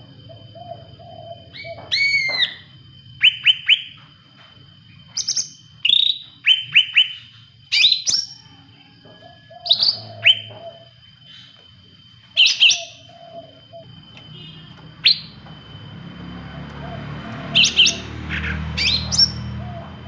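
A caged cucak rante leafbird singing in loud bursts of short, sharp whistled chirps, some sliding down in pitch, at irregular intervals. A softer, lower fluttering call repeats between the bursts.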